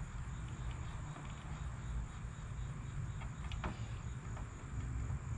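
Crickets chirping steadily over a low outdoor rumble, with a couple of faint clicks about three seconds in as a spade connector is worked onto a speaker terminal.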